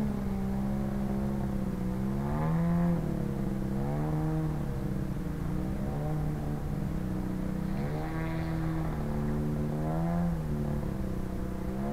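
Engine of a 40% scale Sbach aerobatic RC airplane in flight, a steady drone whose pitch dips and rises about four times as it manoeuvres.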